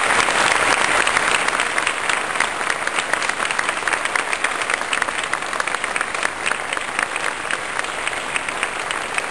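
A large audience applauding, a dense wash of many hands clapping, loudest in the first couple of seconds and then easing off slightly.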